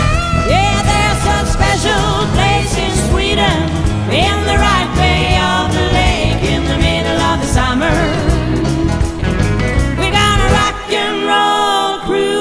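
Music: a song with a singer's voice over a full backing with a heavy bass line; the bass drops out about eleven seconds in while the singing carries on.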